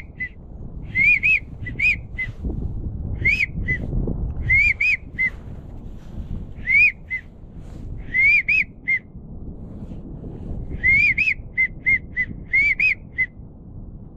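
Pintail-style whistled duck calls: short groups of a sharp rising-and-falling whistle followed by a shorter note, repeated every second or so, with pauses. Under them runs a low rumble of wind.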